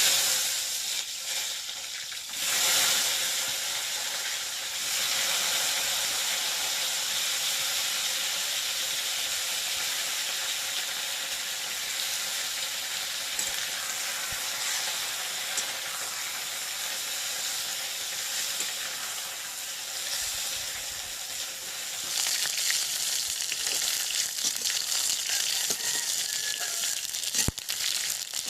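Food frying in hot oil in a cooking pot: a steady, loud sizzle that starts abruptly.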